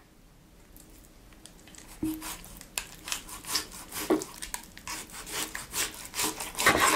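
Chef's knife sawing through raw pork neck and scraping on a wooden cutting board, in repeated uneven strokes that begin about two seconds in.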